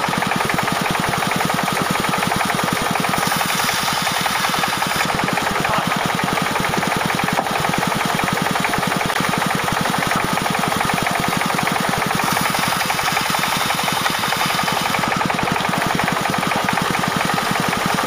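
Engine-driven band sawmill running steadily with a fast, even engine beat, the blade cutting through a log.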